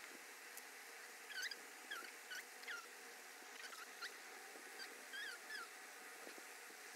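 Faint, short high-pitched chirps or squeaks from a small animal, about a dozen in loose clusters, over a quiet steady background hiss.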